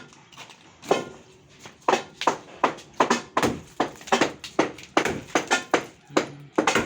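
Repeated sharp knocks, a few spaced strikes at first, then quicker and uneven at about three a second from about two seconds in, like hand tools striking wood.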